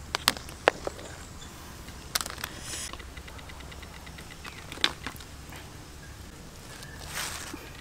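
A few sharp knocks and taps as boiled eggs are lifted out of a wok with a wooden spoon and set into a wicker basket, followed near the end by a brief rustle of the wicker basket being picked up.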